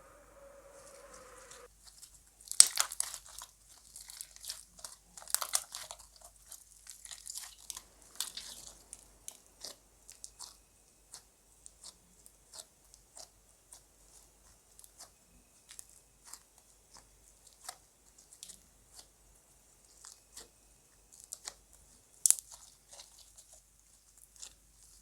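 Slime being worked and squeezed by hand, giving wet crackles and sharp pops at uneven spacing. The pops come thickest in the first third and thin out later, with one loud pop near the end.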